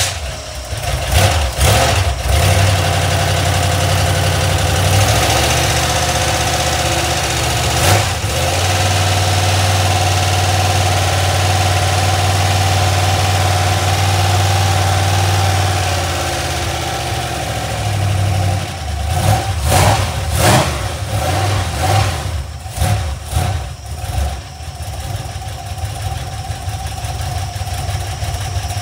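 Carbureted iron-block 5.3 L LM7 V8 with a mild BTR Stage 2 truck cam, just fired up on a run stand and running through headers and mufflers, held at a raised speed by hand at the carburetor. About sixteen seconds in it drops to a lower idle, runs unevenly with sputters for a few seconds, then steadies; it sounds a little noisy on this first run.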